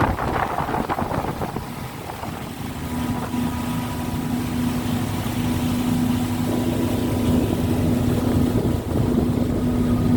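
Motorboat engine running at a steady pitch under the rush of water and wind buffeting the microphone. The engine note comes up clearer and slightly louder about three seconds in.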